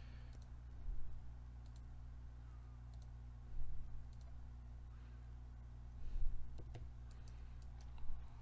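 Several scattered computer mouse clicks, a few seconds apart, over a steady low electrical hum.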